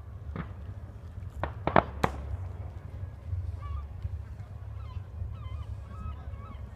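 Fireworks going off: a few sharp bangs in the first two seconds over a steady low rumble, then many short high chirping calls from about three seconds in.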